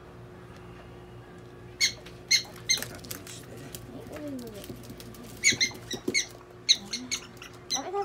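Prairie dog giving short, sharp, high-pitched chirps in quick bunches while it is restrained in gloved hands: a few about two seconds in, then faster runs of them from about five and a half seconds on.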